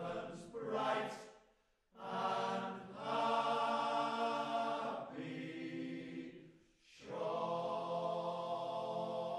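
Male-voice fishermen's choir singing long sustained chords in three phrases, with short breaks about two seconds in and about seven seconds in.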